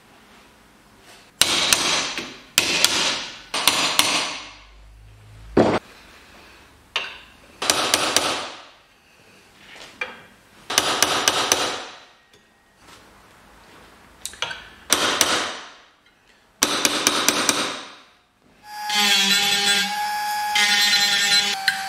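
Hammer blows on a steel pin punch held against the Vespa GS 150's gear cluster clamped in a vise, some blows in quick pairs or triples, with the steel gear ringing after each. Near the end a small handheld rotary tool starts up and runs with a steady whine.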